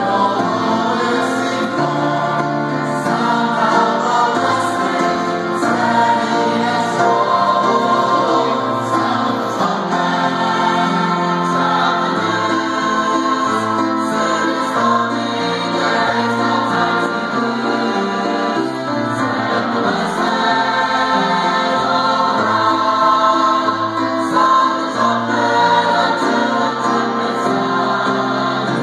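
Mixed church choir of women's and men's voices singing a gospel anthem together, continuous sustained singing with no pauses.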